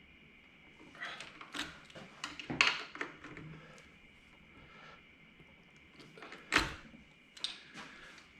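Scattered clicks and knocks of a hand tool on metal as the handlebar riser bolts are checked and tightened, a cluster in the first few seconds and the sharpest knock a little past halfway.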